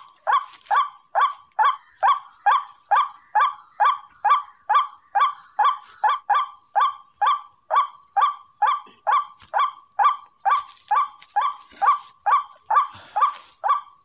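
White-breasted waterhen (ruak-ruak) call played back as a lure through a small horn loudspeaker: the same short call looped over and over at a perfectly even pace, about two and a half calls a second. A steady high-pitched whine runs underneath.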